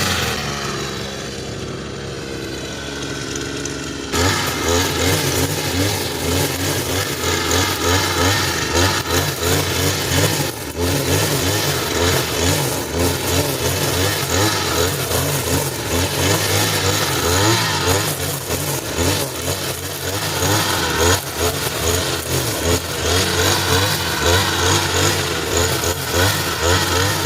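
Petrol brush cutter engine running at low throttle for about the first four seconds, then throttled up and running at high speed while cutting grass, its pitch wavering as the load changes.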